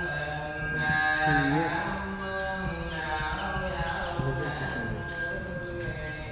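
Background music with steady high ringing tones and a regular pulse about every three-quarters of a second.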